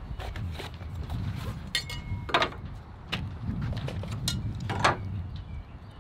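Light clicks, taps and rattles of carpenters' hand tools: metal speed squares set against pressure-treated lumber and tool-belt gear jangling, with two sharper knocks, one a little past two seconds and one near five seconds, over a low background rumble.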